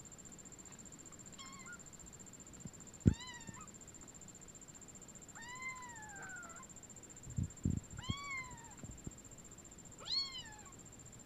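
Young kittens mewing: five separate high, thin mews, each rising then falling in pitch, the longest drawn out and falling about halfway through. A few short soft knocks come in between, the sharpest about three seconds in.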